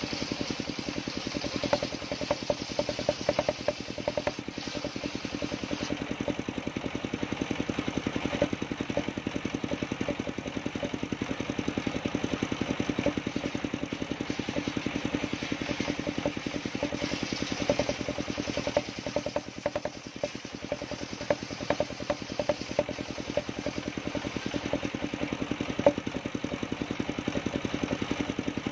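Engine-driven circular sawmill running steadily with a fast, even engine pulse, as coconut-trunk wood is fed through the blade; a few brief louder knocks come at irregular moments.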